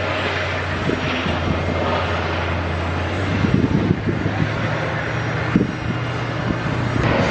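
Custom Coasters International wooden roller coaster train rumbling along its track, a continuous rumble with a steady low hum underneath.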